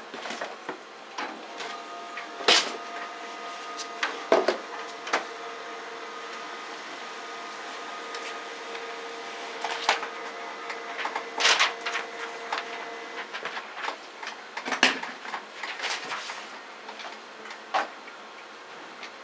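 A steady mechanical hum of a few held tones, stopping about two-thirds of the way through, with irregular sharp clicks and knocks scattered over it.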